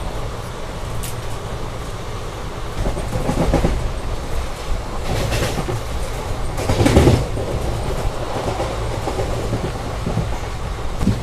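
ICF passenger coaches of an express train running at speed, heard from the open doorway: a steady rumble of wheels on the rails with clickety-clack. There are two louder surges of clatter, about three and a half and seven seconds in.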